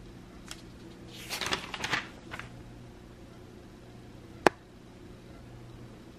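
Paper rustle of coupon insert pages being turned, lasting about a second, then a single sharp click a few seconds later, the loudest sound, over a faint steady low hum.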